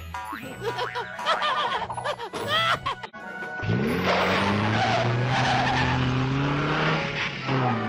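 Cartoon car sound effect: after about three seconds of music, a limousine's engine revs up and it speeds off with tyres skidding on dirt. This gives a steady engine drone over a loud hiss, and the engine revs up again near the end.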